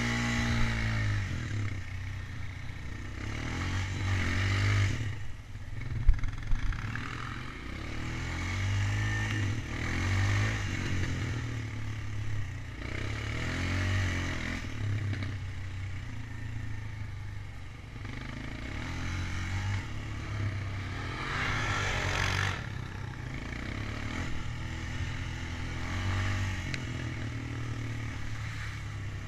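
ATV engine running along a rough dirt trail, its revs rising and falling every few seconds, with a sharp clatter about six seconds in.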